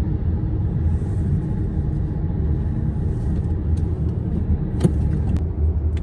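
Steady low road and tyre rumble inside a car's cabin while driving at highway speed, with a single sharp click about five seconds in.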